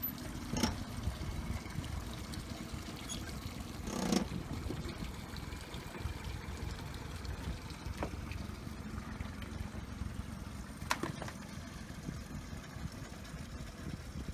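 Honda four-stroke outboard motor running at low speed as the small rigid inflatable boat pulls away, with the propeller churning the water at the stern. A short thump about four seconds in.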